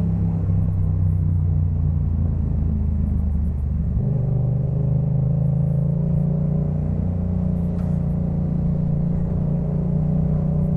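Yamaha MT-07's 689 cc parallel-twin engine running through a Jeskap K4 full aftermarket exhaust while riding. About four seconds in, the engine note steps up in pitch and then climbs slowly.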